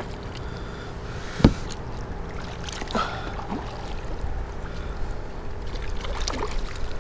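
A small hooked tarpon splashing at the surface beside a kayak as it is played on rod and line, with a sharp knock about one and a half seconds in.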